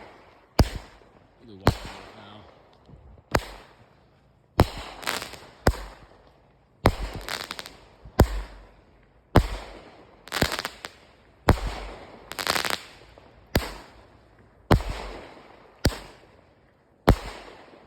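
A 500-gram consumer firework cake firing its shots in sequence, about one sharp report a second and now and then two in quick succession, each followed by a fading crackle of white strobe stars.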